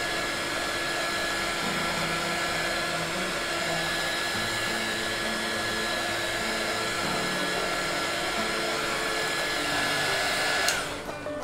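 Small 300-watt heat gun running with a steady fan hiss and whine. Near the end it is switched off: the whine falls away and there is a knock as it is set down.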